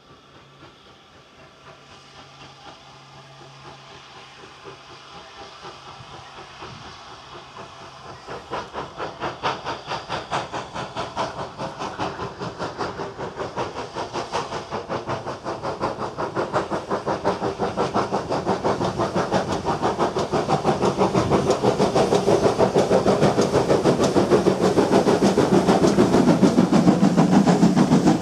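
Steam locomotive hauling a passenger train, approaching and passing close by, its rapid, even exhaust beats and hiss of steam growing steadily louder; near the end the tender and coaches roll past.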